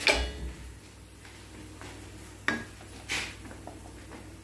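Metal utensils knocking and clinking against a steel pan of semolina in hot ghee: a loud knock at the very start, then a sharp clink about two and a half seconds in and another, softer one about half a second later.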